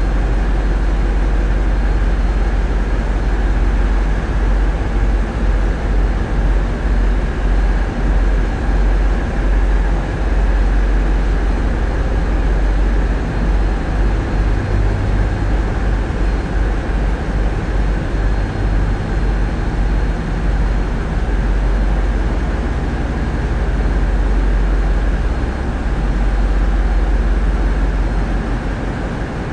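A tugboat's diesel engines running under load: a steady, deep low rumble that swells and eases as the Voith Schneider propulsion is worked.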